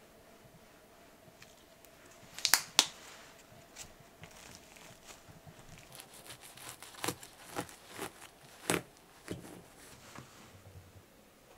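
A kitchen knife cuts through a tonkatsu sandwich, with a series of crisp crunches from the fried breading and bread between about six and nine seconds in. Before that, two sharp clicks come about two and a half seconds in, and these are the loudest sounds.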